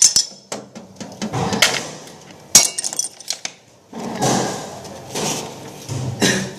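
Irregular knocks and sharp clacks, as of hard objects being handled and set down, with the loudest at the start and about two and a half seconds in, and rustling handling noise between them.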